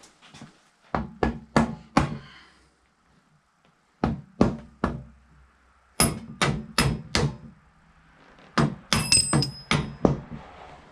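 Small hammer tapping metal mini bike parts into place, in four bursts of four or five quick blows with short pauses between them. Several blows in the last burst ring metallically.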